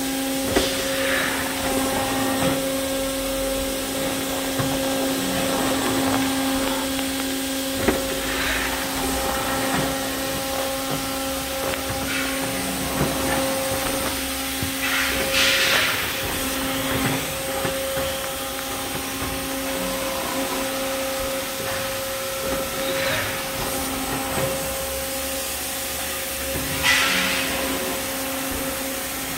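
Factory machinery running with a steady, even hum over a bed of mechanical noise. Short hisses break in a few times, the loudest about halfway through and again near the end.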